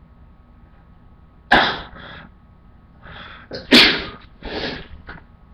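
A man sneezing twice, induced by tickling the nose with a cotton swab. A sharp sneeze comes about a second and a half in. A second, louder sneeze follows about two seconds later after a short build-up.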